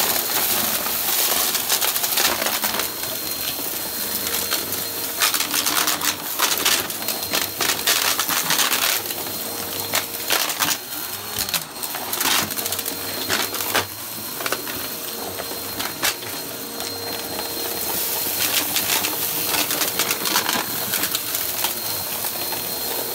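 Upright bagless vacuum cleaner running over carpet with its brushroll on: a steady motor whine under bunches of crackling clicks and rattles as crunchy debris is sucked up into the canister.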